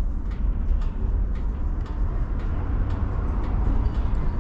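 Tram running slowly, heard from inside: a steady low rumble with faint regular clicks about twice a second.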